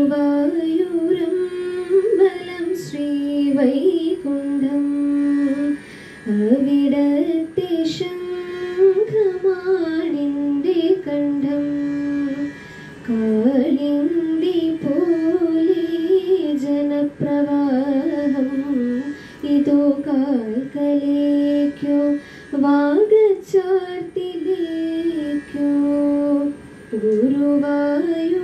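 A young woman singing a melodic song solo into a handheld microphone, her voice gliding and ornamented between notes, in phrases of several seconds with short breaths between them.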